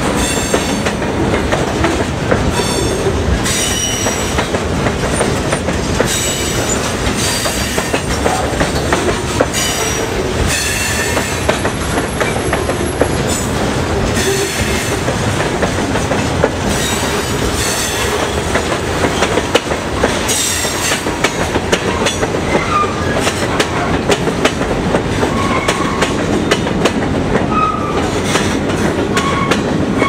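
Freight train cars rolling past close by: a steady loud rumble and clatter of wheels over the rails, with high-pitched wheel squeal coming and going.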